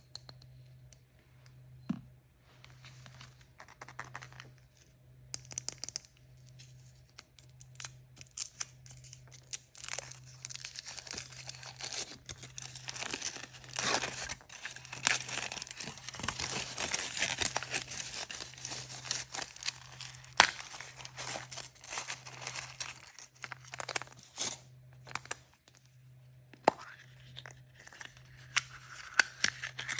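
Hands tearing open and crinkling the plastic or foil wrapping of surprise toys, with small clicks and crunches of packaging, the tearing thickest through the middle stretch.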